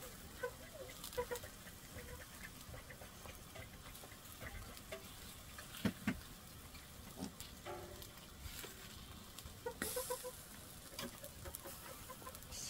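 Soft crackle and sizzle of fish cooking on a wire grill over charcoal, with scattered light clicks and taps as hands peel back the foil and handle the fish; one louder knock about six seconds in.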